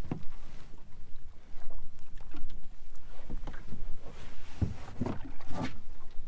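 Water slapping and sloshing against the hull of a small fishing boat at sea, with several irregular thumps, the loudest cluster about two thirds of the way through.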